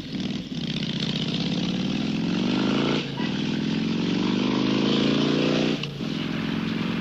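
Motorcycle engine accelerating hard through the gears: the pitch climbs, drops with an upshift about three seconds in, climbs again and drops with another shift near the end.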